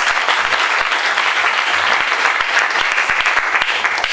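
Audience applauding steadily, dying away abruptly near the end.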